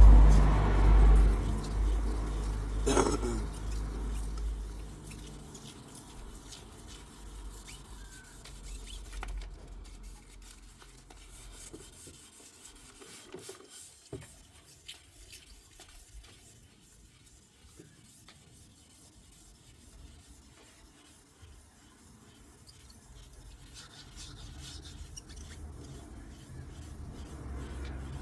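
Dry hand sanding of a panel with 2000-grit sandpaper: a faint, repeated rubbing of the paper over the surface, with no lubricant, so the paper slips. A low rumble fades out over the first few seconds.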